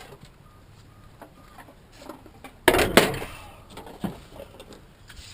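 A short, loud clatter of hard objects, two quick hits about three seconds in, among faint handling knocks.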